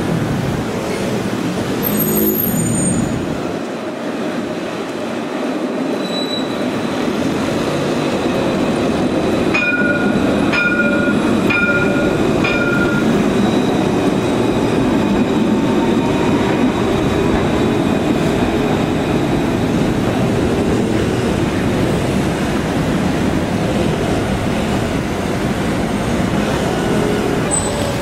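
Alstom Citadis 302 low-floor tram passing close by: the rumble of wheels on the rails swells as it draws near and runs past, over street traffic. About ten seconds in come four short, high beeps, a second or less apart.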